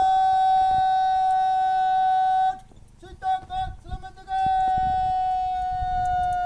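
A bugle sounding a military call: one long held note, a few short notes about three seconds in, then another long held note that stops just after the end.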